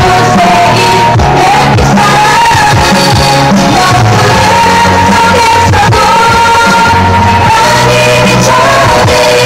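K-pop girl-group song played loud through the stage PA. Several female voices sing the melody in long held notes over a backing track with a bass line.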